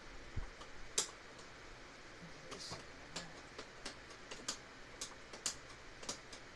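Small screwdriver tip clicking and scraping inside a slot in a bamboo tray's frame, probing for and picking at dried wood glue: irregular light ticks and short scrapes, the sharpest about a second in.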